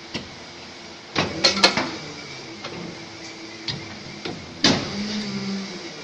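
Lamp lens injection mould opening and closing in a moulding machine: metal plates and the side latch lock clack and knock shut, with a cluster of sharp knocks about a second in and another loud knock near five seconds, over a low machine hum.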